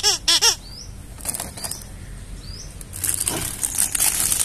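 A rubber toy crocodile squeaks twice as it is squeezed, each squeak rising and falling in pitch. About three seconds in, a plastic toy packet starts to crinkle as it is handled and opened.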